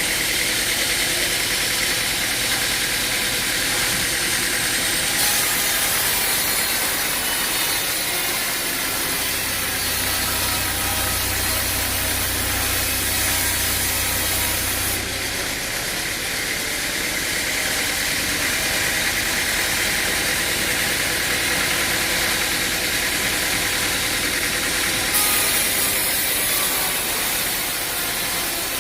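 An engine running steadily under a dense, even hiss of machinery noise.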